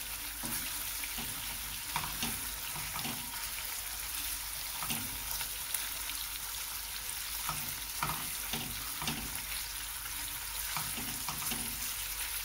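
Chicken pieces sizzling steadily in teriyaki sauce in a nonstick frying pan, while a wooden spatula stirs and turns them with scattered light knocks and scrapes against the pan.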